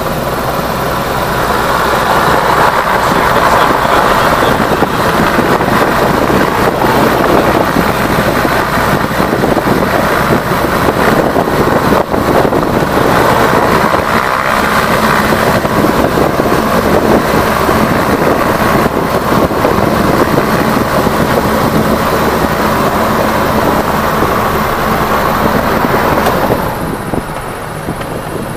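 Light aircraft's propeller engine, geared through a mechanical reduction gearbox, running steadily as heard inside the cockpit, with wind and rolling noise on the runway. It grows louder about two seconds in and drops back near the end.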